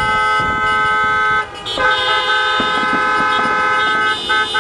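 Several car horns honking in long, sustained blasts, sounding together as a chord, with short breaks about a second and a half in and again near the end.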